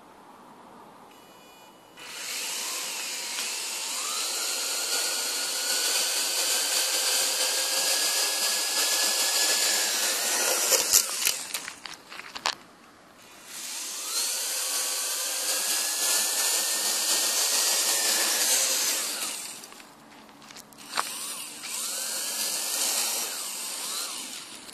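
Homemade Arduino quadcopter's four motors and propellers spinning up with a rising whine and a rush of propeller noise. About eleven seconds in, the quadcopter crashes in a clatter of knocks. The motors then spin up twice more, with a single sharp knock between the runs.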